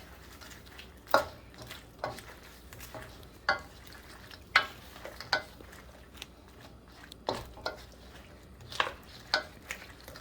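A spoon stirring and tossing fried chicken in sauce in a wok, scraping and clacking against the pan at irregular strokes about once a second, over a faint sizzle.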